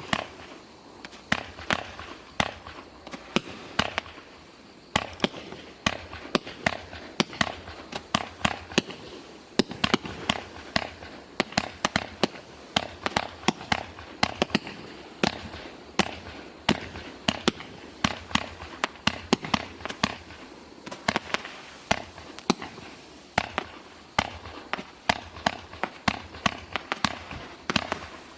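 Dominator Sky Mines, a 48-shot 500-gram aerial-mine firework cake, firing: a steady string of sharp shots and bangs, several a second at times, that keeps going shot after shot.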